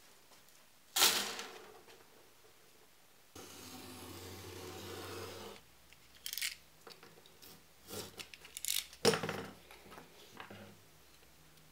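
Tools handled on a wooden workbench: a metal straightedge and a snap-off utility knife set down and shifted, with a sharp knock about a second in, a steady scraping noise for about two seconds, then light clicks and another sharp knock.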